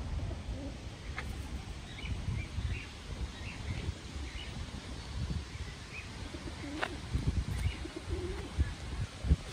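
Pigeons cooing, with a low call near the end, and small birds giving brief high chirps here and there over low background noise.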